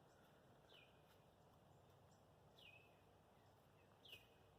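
Faint bird calls: a short, high, falling chirp repeated three times, about every one and a half to two seconds, over a low background hiss.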